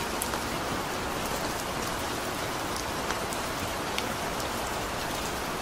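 Steady rain, an even hiss with a few separate drops ticking close by.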